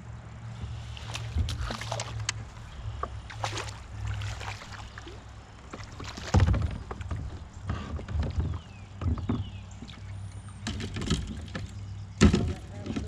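Knocks, bumps and rubbing on a plastic fishing kayak over a steady low rumble, with a few louder knocks about six seconds in and near the end.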